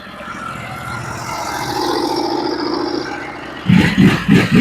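Band sawmill running under load, its blade fed slowly through a wide white oak log because the band is nicked. The sound builds over the first couple of seconds to a steady pitched drone, with a few short louder bursts near the end.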